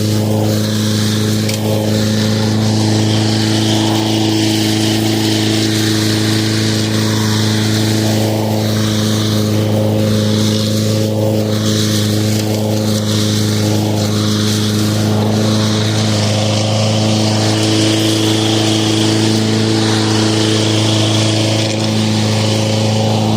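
Lawn mower running steadily at a constant speed, a continuous hum with a strong low pitch that does not change.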